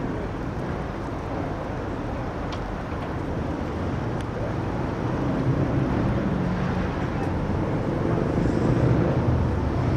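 City street traffic: a steady rumble of motor vehicle engines, growing louder over the last few seconds as a nearby engine runs closer.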